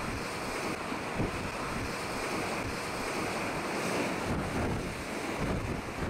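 Wind buffeting the microphone in gusts over the steady rush of rough sea and breaking surf.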